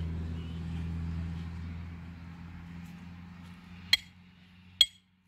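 A low, steady hum that fades away over the first three seconds, then two sharp metallic clinks about a second apart near the end.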